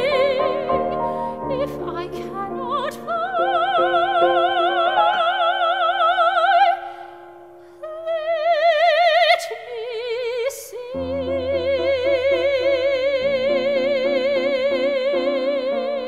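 Soprano singing in operatic style with wide vibrato over grand piano accompaniment. Around seven seconds the voice stops briefly and a single soft piano note holds. The voice then returns in rising phrases and settles on a long held high note from about eleven seconds on, with piano chords beneath.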